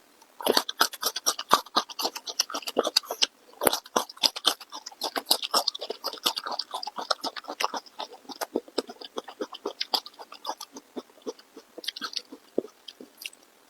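Close-miked chewing: a dense, continuous run of wet mouth smacks and crackly clicks, starting about half a second in.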